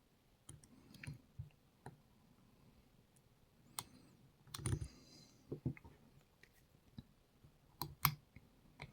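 Scattered faint clicks and taps of lock picks working the pins and sliders of a Rav Bariach RB500 dimple lock during picking. The louder ticks come about halfway through and near the end.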